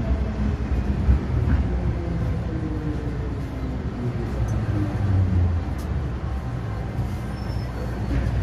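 MTR M-Train electric multiple unit slowing into a station, heard from inside the car by the doors: the traction motor whine falls steadily in pitch over a low rumble of wheels on rail as the train brakes to a stop.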